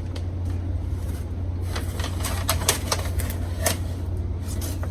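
Irregular crackles and clicks of packaging and plant being handled, over a steady low hum.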